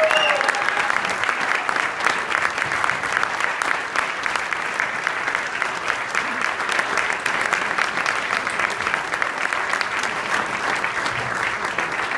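Audience applauding, with dense, steady clapping that eases slightly near the end.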